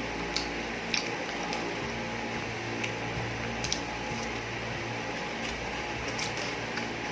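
Wet mouth sounds of sipping milk tea: short squishy clicks, several in the first few seconds and a few near the end, over a steady low hum.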